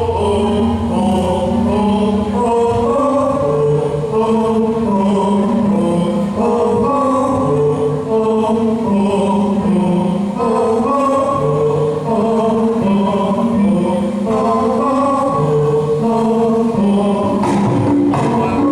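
Dance music carried by a group of voices singing together in long held notes that move from pitch to pitch.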